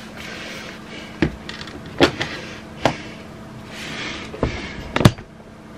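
Handling knocks as a laptop is set down and moved about on a laptop stand: about five separate light knocks and clicks over a low background hiss.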